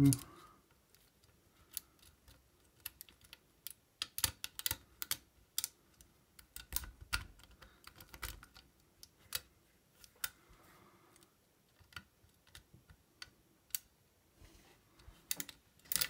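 Lock pick and tension tool working the pin tumblers of an old Eagle mailbox lock: irregular light metallic clicks and ticks that come in bursts with short quiet gaps.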